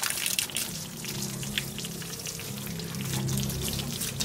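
Water jetting from a garden hose and splattering against the metal grille and fins of a Haier split air-conditioner's outdoor unit: a steady spraying hiss as the dusty condenser is washed. A low steady hum sits underneath.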